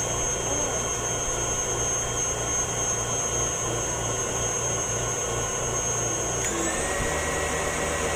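KitchenAid Artisan stand mixer running, with a steady motor whine and hum. About six and a half seconds in, the whine steps up to a higher pitch as the mixer speeds up.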